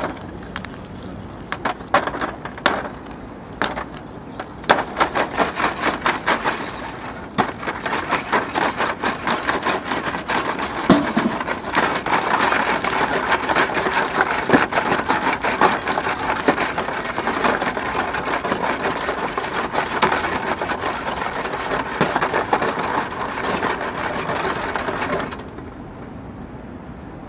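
A group of performers making a dense crackling of small snaps and cracks by hand. It starts as scattered cracks, thickens into a continuous crackle after about five seconds, and cuts off suddenly about two seconds before the end.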